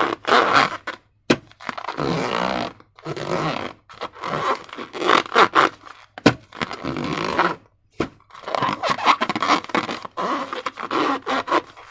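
Slime and transparent balloons being handled by hand: irregular bursts of scraping and crinkling, with a few sharp clicks between them.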